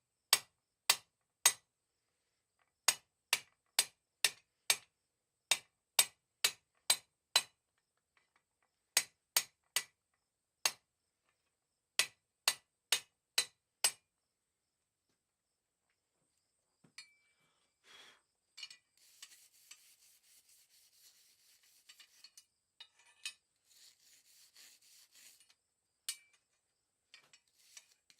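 Hammer blows ringing on a mild steel bar in short runs, about two strikes a second, for the first half. After a pause, a quieter, steady scraping rubbing on the metal follows.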